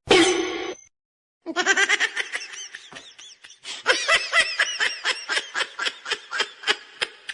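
A person laughing hard in rapid, repeated bursts, starting about a second and a half in after a brief sound and a short silence.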